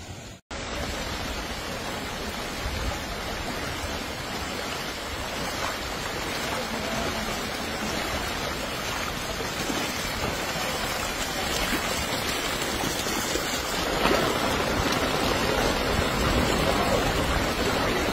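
Steady rushing hiss of heavy rain falling on a flooded street, growing louder about 14 seconds in.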